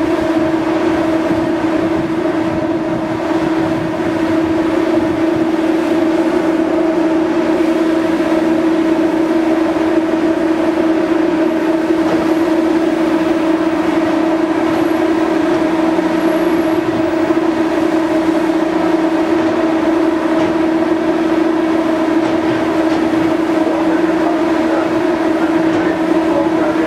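Steady, loud hum of the BC Ferries vessel MV Salish Eagle's shipboard machinery: a constant drone with one strong mid-pitched tone and a fainter tone above it.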